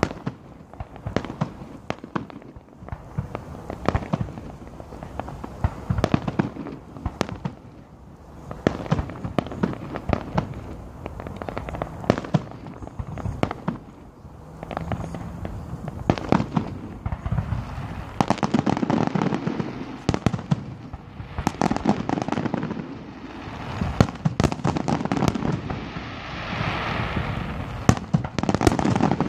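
Fireworks going off: a steady run of sharp bangs and pops, growing denser and louder in the last third.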